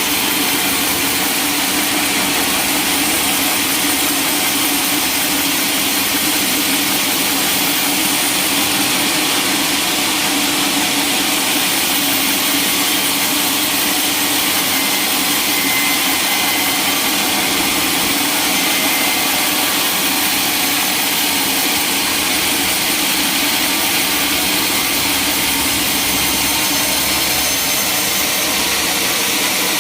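Sawmill saw running steadily: a loud, even, hissing noise with a steady hum underneath, without breaks or knocks.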